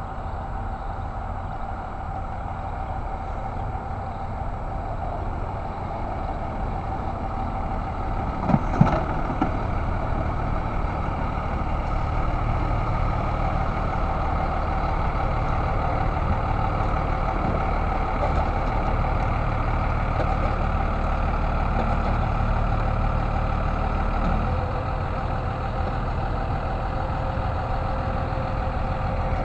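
A vehicle engine idling with a steady low rumble and a faint steady hum. A couple of short knocks come about eight and a half seconds in.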